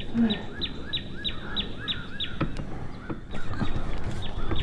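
A songbird repeating quick down-slurred whistled notes, about four a second, with a brief pause about three seconds in.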